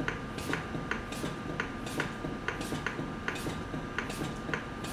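Maquet CardioSave Hybrid intra-aortic balloon pump running, its drive clicking in a steady rhythm of about two to three clicks a second as it inflates and deflates the balloon, over a steady high whine.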